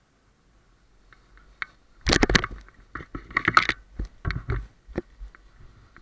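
Paraglider touchdown in dry scrub and dirt: a burst of crunching, scraping and thumping impacts from about two seconds in, then a few separate knocks as it settles, picked up close on the pilot's own camera.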